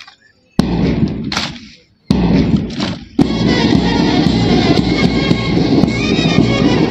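Music starting up: two sudden loud hits that fade, about half a second and two seconds in, then continuous music with a regular rhythm from about three seconds in.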